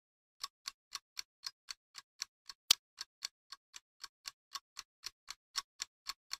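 Ticking sound effect on an otherwise silent track: evenly spaced clock-like ticks, about four a second, starting about half a second in, with one louder tick near the middle.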